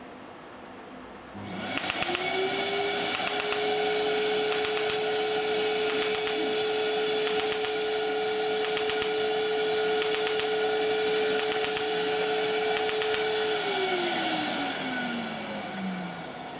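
Asclepion MCL30 DermaBlate erbium:YAG laser firing a fractional treatment on facial skin: rapid clicking of laser pulses over a machine hum that rises in pitch about a second and a half in, holds steady, and winds back down near the end.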